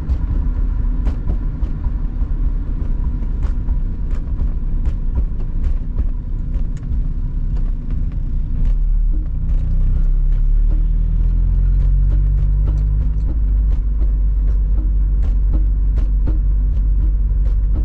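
Car interior on a drive in the rain: steady low engine and road rumble, with the engine note rising from about nine seconds in as the car picks up speed, then holding steady. Faint short ticks are scattered throughout.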